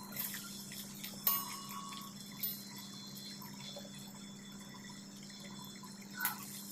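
Wheat-flour papdi deep-frying in hot oil in a steel kadhai on a low flame, a steady gentle sizzle, with a few sharp metal clinks as a wire spider strainer knocks against the pan, about a second in and again near the end.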